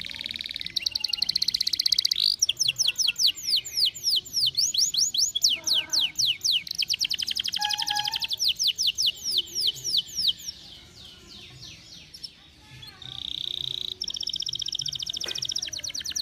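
Domestic canary singing: fast rolling trills of quickly repeated falling notes, switching from one trill to the next. About two-thirds through there is a short lull, then a held high note and a buzzy trill.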